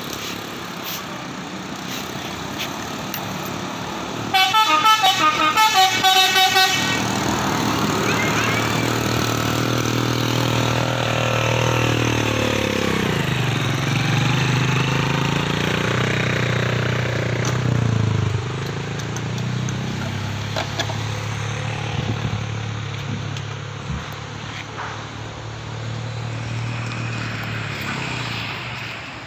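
Bus 'telolet' musical air horn played as a quick run of pulsed notes for about two seconds, starting about four seconds in. A heavy vehicle's engine follows, passing with its pitch falling, and then a steady engine drone.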